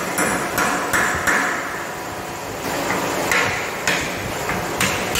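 Hammer blows on a wooden door frame being fixed into a doorway opening: about eight sharp strikes, four in quick succession, a pause of about a second, then four more.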